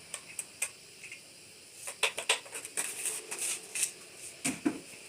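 Kitchen utensils and cookware clinking and clattering: a few light clicks, then a busy run of sharp clinks from about two seconds in, ending with a duller knock.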